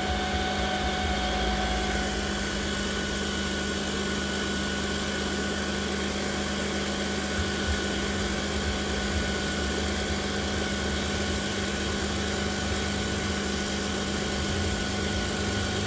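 2008 Jeep Grand Cherokee's 4.7-litre V8 idling, with its alternator giving a steady whine over the engine. The whine comes from bad diodes in the alternator, which is stuck at low output and running very hot.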